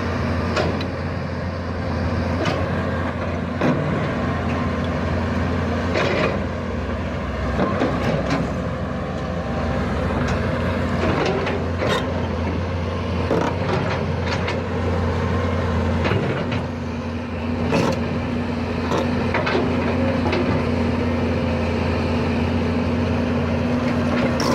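Diesel excavator engine running steadily, with scattered sharp clanks and knocks from the machine's metal parts as it works.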